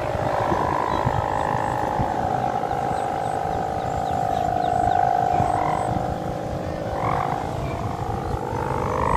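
Sendaren, the bow-shaped kite hummer mounted above a flying kite, droning a steady, slightly wavering tone.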